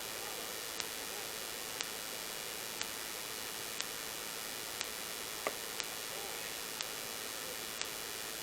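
Steady hiss of recording noise, with a faint click about once a second and one sharper tap about halfway through.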